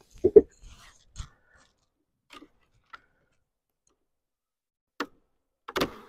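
Short, sharp knocks and clicks of wooden beehive equipment being handled and set down. About half a dozen separate knocks, the loudest just after the start and another near the end.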